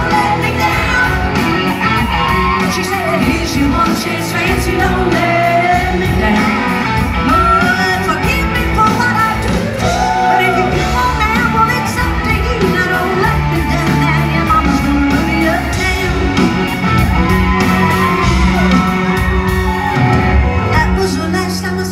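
Live country band playing in a large arena, a woman singing lead over drums, bass and guitars, heard from the audience with the hall's echo.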